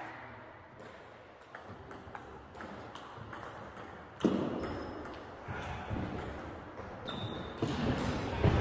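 Table tennis ball clicking off rubber bats and the table during rallies in a large sports hall, with a louder thump about four seconds in.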